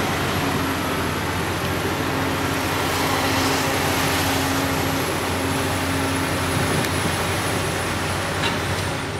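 Caterpillar 568 log loader running steadily while it swings a grapple load of logs onto a logging truck: a constant diesel hum with a thin high whine above it.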